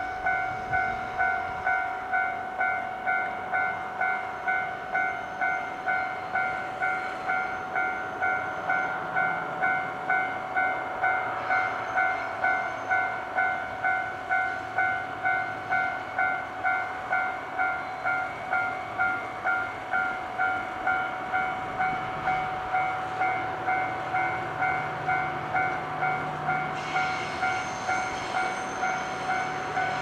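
Railway level-crossing warning bell dinging steadily, about one and a half strokes a second, while a JR Freight DF200 diesel locomotive hauling container wagons approaches. Its engine rises to a low hum in the last several seconds.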